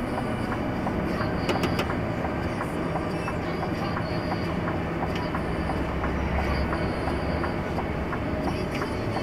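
Steady rumble of a vehicle on the move, with faint ticks a few times a second over the top.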